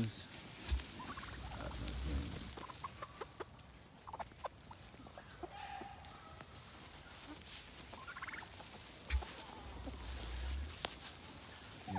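Turkeys and chickens calling: scattered clucks and short high peeps, and a strutting tom turkey gobbling, with a quick rattling call about two-thirds of the way through. A few low thumps are mixed in.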